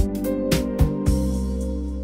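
Gentle instrumental background music: a few struck notes over a held chord, which then fades slowly.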